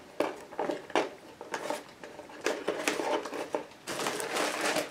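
Clear packing tape being picked at and peeled off a cardboard box: scattered crackles and taps, then a longer stretch of peeling noise near the end.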